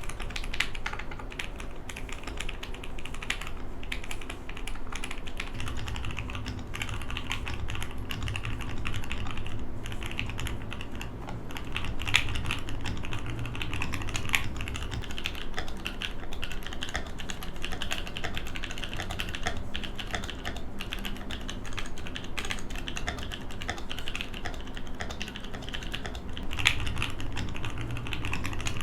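Custom mechanical keyboard with lubed linear switches being typed on steadily: a continuous stream of keystrokes, with a few louder strikes about twelve seconds in and near the end.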